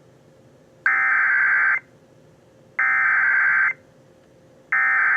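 Emergency Alert System SAME header: three identical bursts of buzzing digital data tones, each about a second long and about a second apart. They encode the flash flood warning alert that is about to be broadcast.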